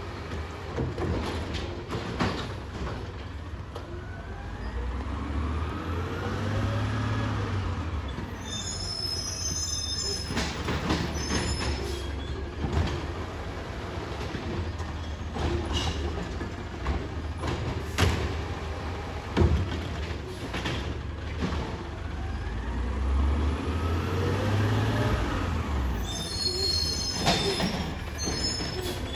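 Automated side-loader garbage truck picking up curbside carts: the engine revs up and back down twice to drive the hydraulic arm, with a brief high squeal after each rev and clanks and bangs as the carts are handled and dumped.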